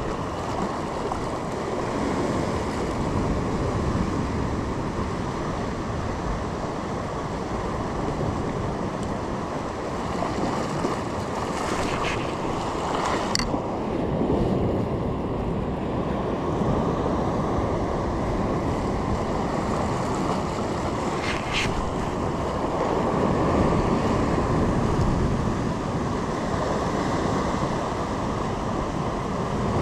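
Steady rushing of ocean surf and wind buffeting the microphone, with a few brief higher-pitched sounds about two fifths and two thirds of the way through.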